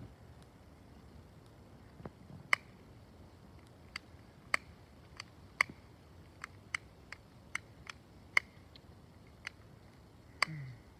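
A lit firework crackling: sharp, separate pops at an uneven pace, about twenty of them, with faint quiet between.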